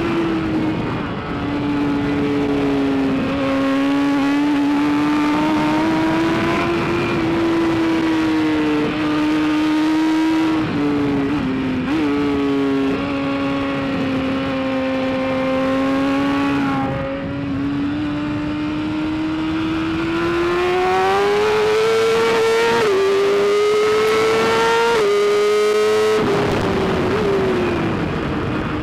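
BMW S1000RR inline-four superbike engine running hard at high revs on a race lap. Its pitch sags and climbs through the lap, rising steadily through the last third, with sudden steps at gear changes about halfway through and again near the end.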